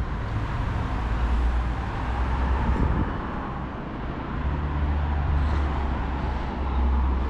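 Road traffic passing: a steady rush of vehicles with a low rumble that grows heavier about halfway through.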